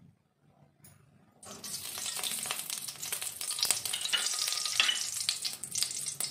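Desi ghee sizzling and crackling as it hits a hot, smoking kadai, starting suddenly about a second and a half in.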